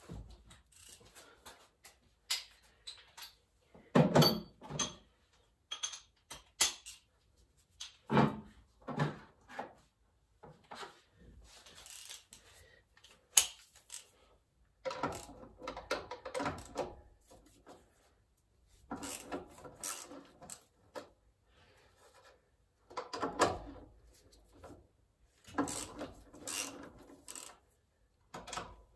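Intermittent clanks, knocks and scrapes of hand tools and metal parts being handled during engine disassembly. They come in bursts of a second or two with short pauses between, the loudest knocks about four and eight seconds in.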